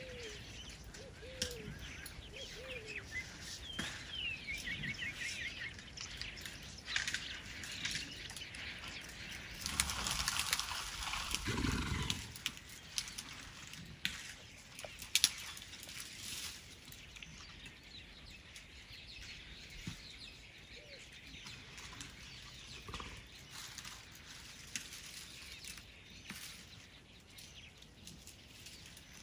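Birds calling and chirping in short calls and trills, over the rustling and snapping of acacia branches as African elephants feed on the tree. A loud rustle of leaves and branches lasts a couple of seconds about ten seconds in, and a few sharp cracks of breaking wood follow shortly after.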